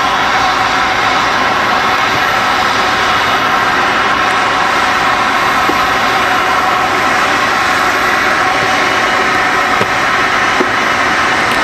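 Airbus A330 freighter's twin jet engines running at taxi power close by: a loud, steady whine over a rushing noise.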